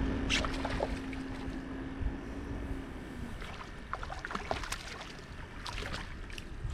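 Wind on the microphone and water noise around a small fishing boat, with a steady low hum for the first three seconds or so and scattered light clicks and taps.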